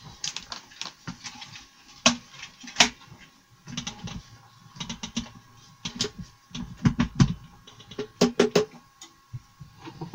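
Irregular metal clicks, clinks and knocks as the cutter in a table-mounted router is changed by hand at the collet, with no motor running. There are a few sharp clicks about two and three seconds in and a close run of them later on.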